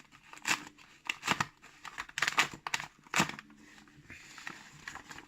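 Paper envelope being torn open and handled by hand: a string of irregular rips and crinkles, softening to a lighter rustle near the end.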